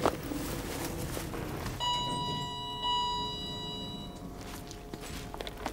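Elevator arrival chime: two bell-like tones about a second apart, starting about two seconds in and ringing out over the next second or so. A short knock comes right at the start.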